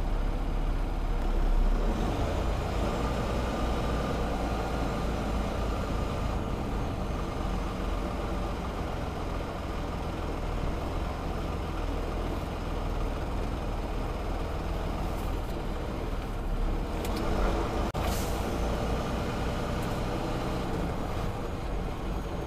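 Semi-truck's diesel engine running slowly, a steady low rumble heard from inside the cab, with one brief sharp burst of noise about three-quarters of the way through.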